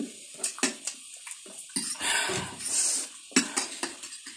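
Eating sounds: wet chewing and mouth clicks, with a long slurp in the middle, typical of noodles being sucked up.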